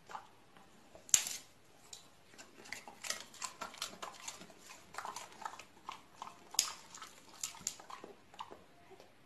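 Two golden retrievers tussling over a soft plush toy: a run of short, irregular snuffling and mouthing noises, with a sharper, louder sound about a second in and another about two-thirds of the way through.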